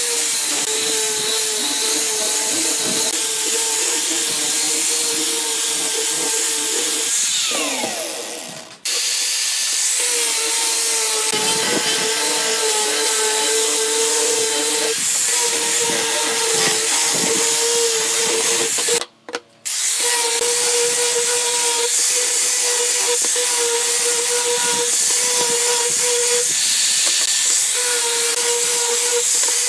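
Angle grinder with a sanding disc running at speed against pine boards: a steady high whine over a rasping hiss. About seven and a half seconds in, the whine falls as the motor slows, and the sound drops out. It then runs steadily again, with another brief dropout near the twenty-second mark.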